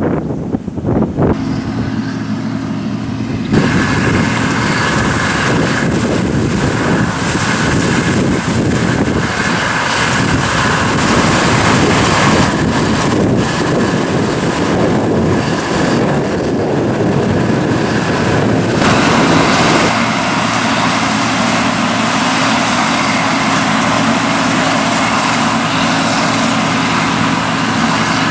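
John Deere combine harvesters and grain-handling machinery running in a field: a loud, steady machine hum with wind noise on the microphone. The sound changes abruptly a few times as it cuts from one machine to another.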